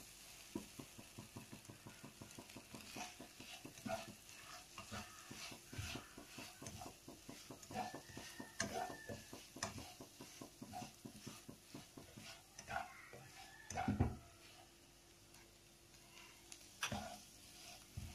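A spatula stirring and scraping a mashed boiled-egg and onion mixture around a frying pan in short irregular strokes, over a low sizzle. A louder knock of the spatula against the pan comes about 14 seconds in.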